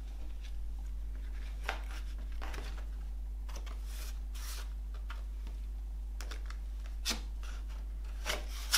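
Cardboard CD packaging being handled: card and paper sliding and rustling as a folded sleeve is opened and its contents pulled out, with a few sharp taps and clicks, the sharpest near the end. A steady low hum runs underneath.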